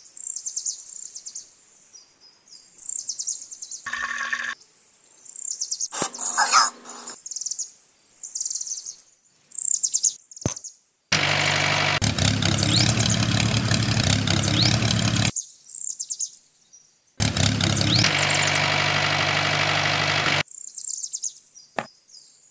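Small birds chirping on and off, with two spells of a steady motor drone, about four and three seconds long, in the second half, from the miniature toy tractor driving.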